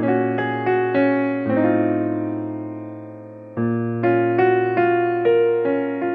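Background music: a soft piano-keyboard tune of struck notes over a held bass note, with a chord left ringing and fading for a couple of seconds in the middle before the melody picks up again.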